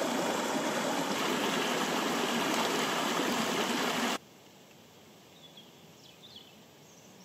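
Small rocky mountain stream running over stones, a loud steady rush of water that cuts off suddenly about four seconds in. A quiet background follows, with a few faint high chirps.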